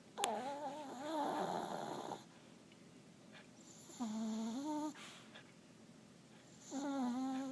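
Sleeping Chihuahua snoring: three pitched snores, a long one of about two seconds at the start, a shorter one just past the middle, and another beginning near the end.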